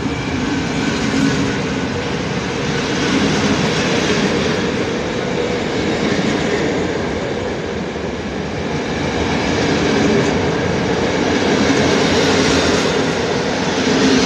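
Passenger coaches of a PKP Intercity train rolling past on the rails: a continuous rush of wheel and rail noise with a steady hum underneath, swelling and easing every few seconds as the coaches go by.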